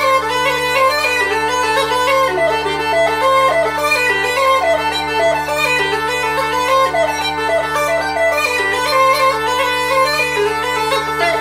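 Uilleann pipes playing a fast reel: a quick chanter melody of short notes over steady drones.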